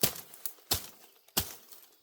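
Three sharp cracking strikes, about two-thirds of a second apart, with a faint rustle between them.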